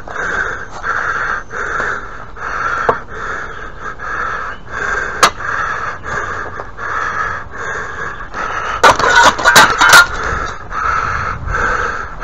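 A man breathing hard, panting in quick even breaths, about one and a half a second. A few sharp knocks come about nine to ten seconds in.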